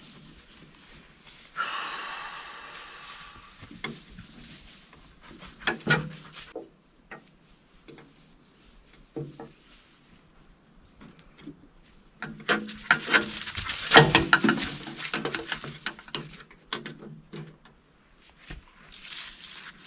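Metal jangling and clinking, scattered clicks with a scraping noise about two seconds in and a busier stretch of clattering past the middle.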